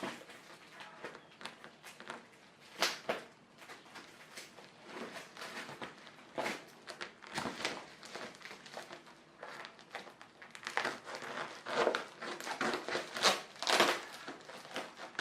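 Plastic parcel packaging crinkling and rustling in irregular bursts as it is cut and pulled open, busiest about two-thirds of the way through.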